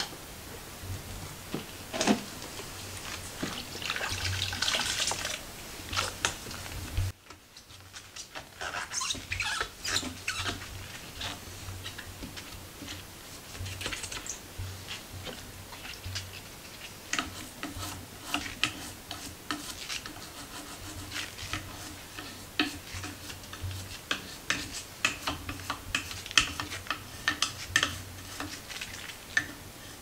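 Rubber-gloved hands wiping and scrubbing painted wooden bannister spindles with a damp cloth and a small brush: many short rubbing and scratching strokes, with water splashing as the cloth is wrung out in a plastic bowl.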